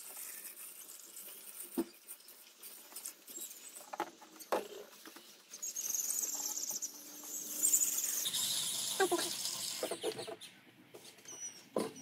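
Liquid coolant being poured from a plastic jug into a funnel on the coolant reservoir, with an irregular trickling hiss, then knocks and rustling as the jug is set down and handled.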